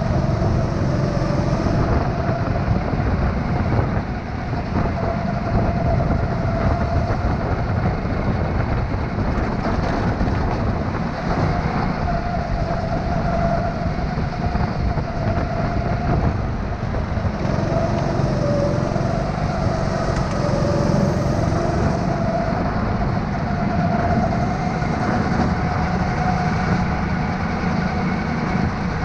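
Onboard sound of an indoor racing go-kart at racing speed: a steady drone and rumble from the kart, its pitch wavering up and down as it brakes and accelerates through the corners.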